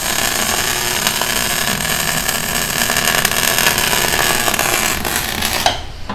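Stick (electrode) arc welding a seam on a shock absorber's tube: a steady, dense crackle of the arc that cuts off suddenly near the end as the weld is finished.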